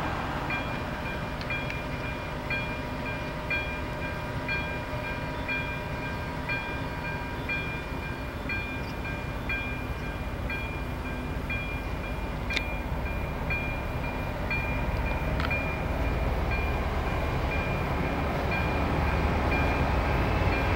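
Level-crossing warning bell ringing about once a second over the steady running of a ČD class 754 locomotive's V12 diesel engine. The engine's low rumble grows louder in the last few seconds as the locomotive pulls its train away from the stop.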